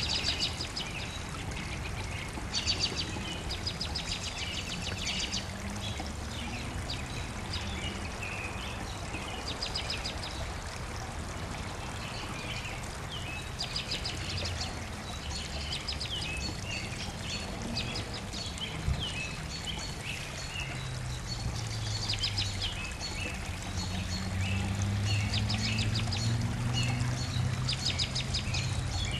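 Several songbirds singing at once, a busy mix of rapid trills and chirps, over a steady low background rumble that grows louder in the last several seconds.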